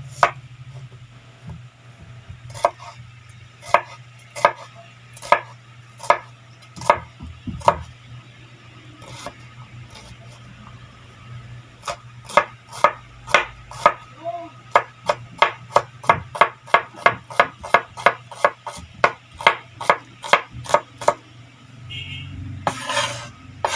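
Kitchen knife chopping a red onion on a bamboo cutting board: sharp knocks of the blade on the wood, a few slow, spaced cuts at first, then a quicker run of about three chops a second from about halfway. A short rustling noise near the end.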